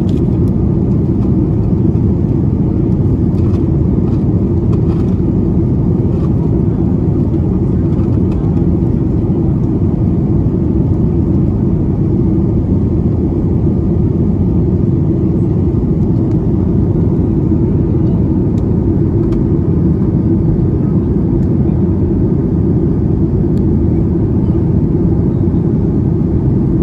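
Steady low rumble of engine and air noise inside the cabin of a Boeing 737 MAX 9 in flight, from its CFM LEAP-1B turbofans and the airflow over the fuselage. It holds an even level and pitch throughout.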